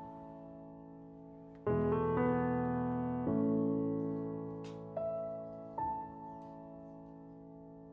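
Background piano music: slow chords struck one after another, each left to ring and fade.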